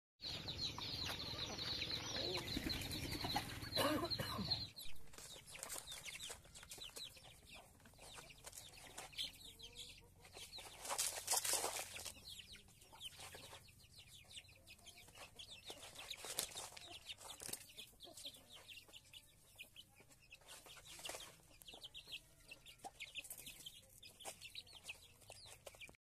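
Aseel chickens clucking and moving about, with many short clicks and scratches. The first few seconds are louder and noisier.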